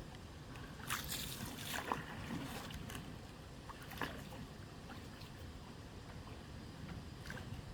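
A small boat being rowed on a lake: irregular splashes of water and light knocks, several seconds apart.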